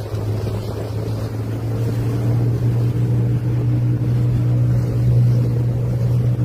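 An engine running steadily with a low hum, rising a little in pitch and loudness about two seconds in.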